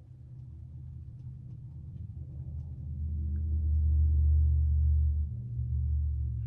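A low droning hum that grows louder to its peak about four seconds in, dips briefly after five seconds, then returns and cuts off at the end.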